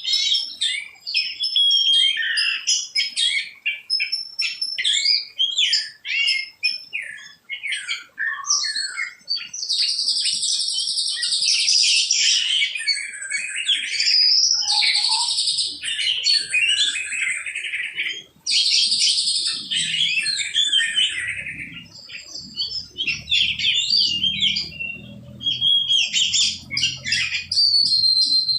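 A bird singing a long, varied song of rapid chirps, whistles and trills, with denser chattering stretches about ten and nineteen seconds in.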